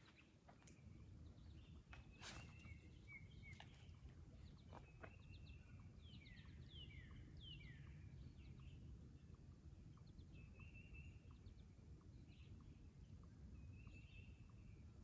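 Faint outdoor ambience of wild birds calling and singing: repeated downward-sweeping chirps, thickest in the middle, and short trilled notes, over a low steady rumble of wind. A few soft knocks sound in the first few seconds.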